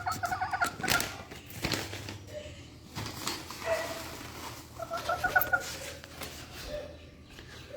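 A hen giving soft warbling clucks in two short runs, with sharp taps of her beak pecking feed off a board between them.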